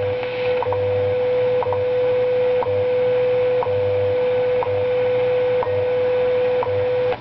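WWV shortwave time signal on 5 MHz, received on a Philco 116B tube radio and heard from its loudspeaker. A steady tone is broken by a short tick once every second, with a low pulsing time code underneath. The tone stops near the end.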